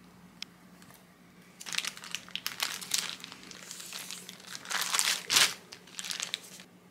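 Plastic bag full of white bean paste crinkling as it is handled and the paste is pressed flat inside it. The crinkling starts about a second and a half in and comes in irregular bursts, loudest a little past the middle.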